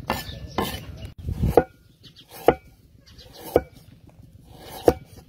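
A heavy cleaver chopping through a peeled root onto a wooden chopping block: sharp knocks, about one a second.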